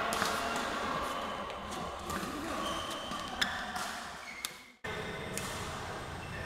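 Badminton rackets striking shuttlecocks in a multi-shuttle drill: sharp, separate hits about once a second, with short squeaks of court shoes on the mat. The sound cuts out for a moment a little after halfway.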